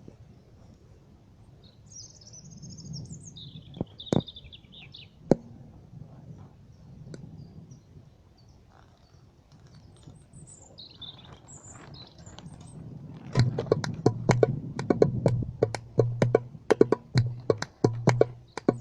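Wild birds chirping and calling, with two sharp taps in between. About 13 seconds in, a drum starts being played in a quick, steady rhythm of sharp strikes over a low ringing tone, louder than the birds.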